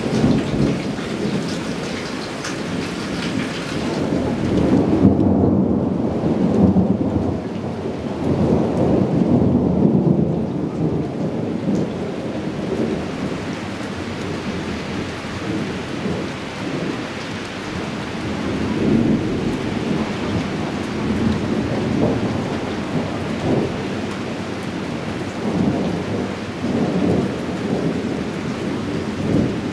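Thunder rumbling over steady heavy rain, swelling loudest several seconds in and again about two-thirds of the way through.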